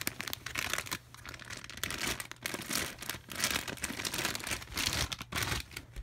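Plastic packaging of a squishy toy crinkling and tearing as it is unwrapped, in irregular rustling bursts that stop shortly before the end.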